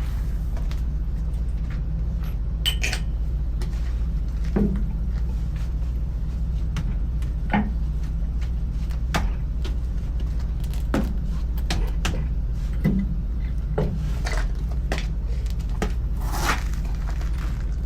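Scattered metallic clinks and knocks, one every second or so, some ringing briefly, from tools and wheel parts being handled during truck tyre work, over a steady low machine hum.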